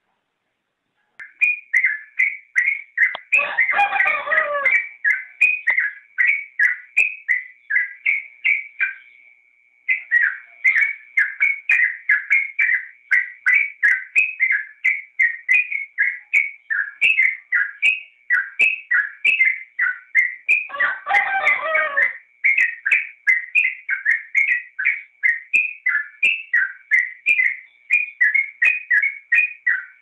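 Yellow-vented bulbul (trucukan) singing a fast run of repeated high chirping notes, about three a second. It starts about a second in, pauses briefly near ten seconds, and has two louder, fuller bursts of song, around four seconds in and again around twenty-one seconds in.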